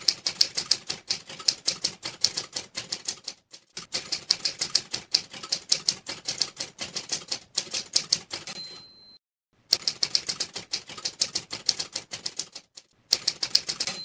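Manual typewriter sound effect: runs of rapid keystroke clicks, broken by three short pauses, with a short bell ding about eight seconds in and another at the end, like a typewriter's end-of-line bell.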